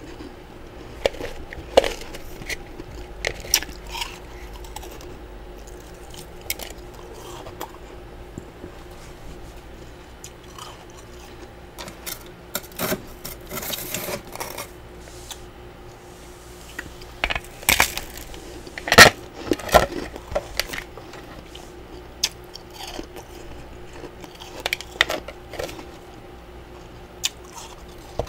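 A spatula scraping and chipping built-up freezer frost loose, with irregular crisp crunches of the frost chunks. The crunches come in louder clusters about halfway through and again around two-thirds of the way in.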